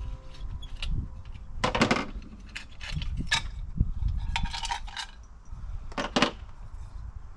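Metal hand tools and small metal parts clinking and clattering as they are handled, in several separate short rattles.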